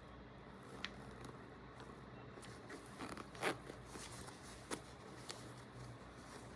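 Bag zipper being worked back and forth, the slider scraping and clicking over the teeth in a few short strokes; the slider is worn loose, so one section of the chain won't close.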